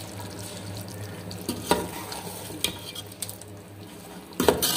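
A steel ladle stirring a curry of meat and potatoes in an aluminium pot, with a few sharp clinks of metal on metal and a louder knock against the pot near the end, over a steady low hum.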